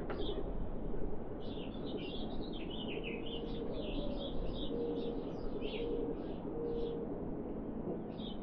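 A songbird chirping a rapid run of high, down-slurred notes for several seconds, with one more chirp near the end. Under it are a few faint, short, low hoots over a steady low outdoor background.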